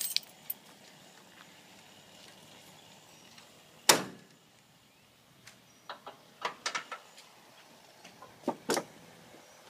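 A single loud bang about four seconds in, then a scatter of lighter clacks and knocks as ratchet straps are pulled off a load of lumber on a utility trailer.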